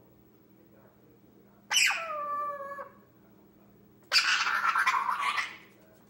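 Indian ringneck parrot calling twice. About two seconds in comes a pitched note of about a second that falls in pitch. Then comes a harsher, rasping screech of about a second and a half.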